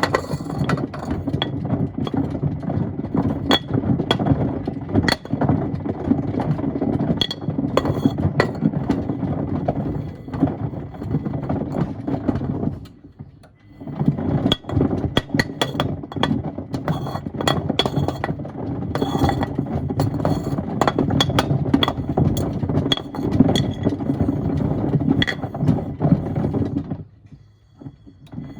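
Miele washing machine drum tumbling a load of stones and wood: a steady rumble with constant clattering and knocking of the stones against the drum. The sound stops for about a second around 13 seconds in and again near the end as the drum pauses.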